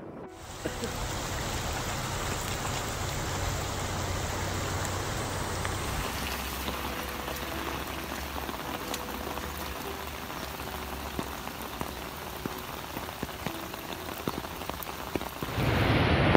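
Rain falling steadily on flooded streets, an even hiss with fine drop ticks; the sound changes about six seconds in. Near the end it gives way to wind buffeting the microphone.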